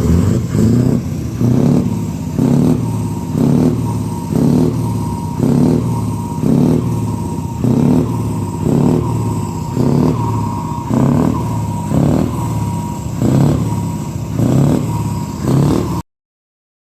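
An engine running with a slow, even pulse, about four beats every three seconds. The sound cuts off abruptly near the end.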